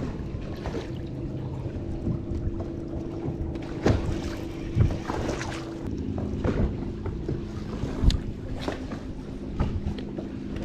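Bass boat's electric trolling motor humming steadily, its pitch changing about six seconds in, with a few sharp knocks on the boat.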